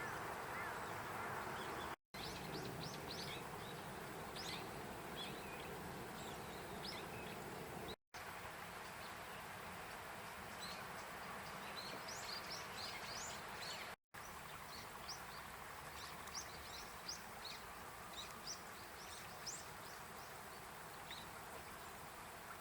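Small birds chirping in short, high calls over a steady rushing background. The audio breaks off three times where separate clips are joined.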